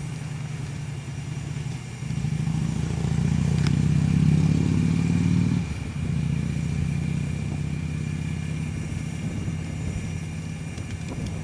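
A motor vehicle's engine running close by, growing louder for a few seconds in the middle, then settling back to a steady hum.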